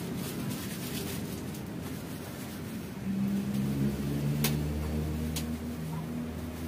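A low engine hum comes in about three seconds in and runs on, with two sharp clicks over it.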